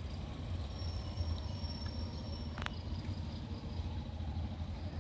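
Outdoor background with a steady low rumble, a thin high steady tone lasting about two seconds, and one sharp click a little past halfway.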